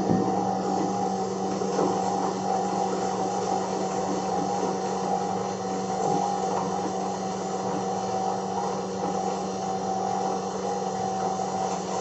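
STC Swaroop domestic flour mill (aata chakki) running steadily, its electric motor and grinder milling wheat with a constant hum. There is one light knock at the start.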